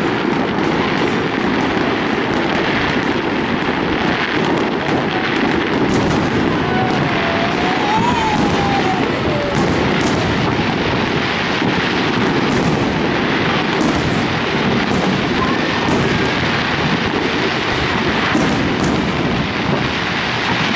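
Fireworks display in a dense barrage: aerial shells bursting one after another over continuous crackling, with a wavering whistle about seven seconds in.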